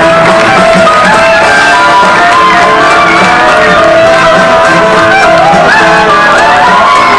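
Loud, continuous music with guitar.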